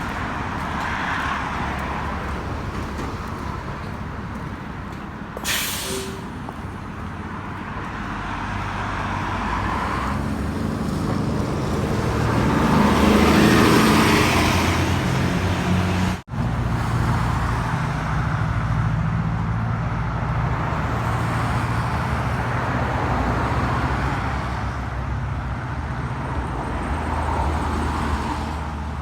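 City street traffic running steadily, with tyre noise on a rain-wet road. A heavy vehicle passes and is loudest around halfway, and a brief sharp hiss comes about five seconds in. The sound drops out for an instant just after the pass.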